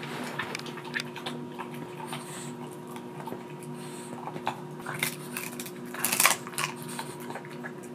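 A French bulldog slowly crunching and gnawing a dried duck-neck bone treat: irregular cracking clicks, loudest about six seconds in. A faint steady hum runs underneath.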